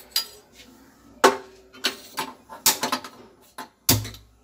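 Gas stove burner being lit, the igniter giving a series of sharp, unevenly spaced clicks. The last click, near the end, has a brief low hum after it.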